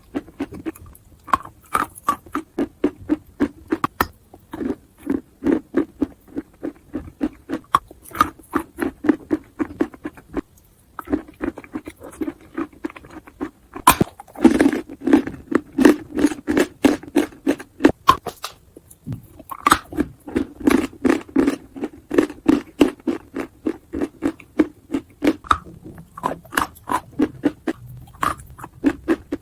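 A person biting and chewing chalk close to the microphone: a rapid, regular run of crunches, a few a second, broken by a few brief pauses.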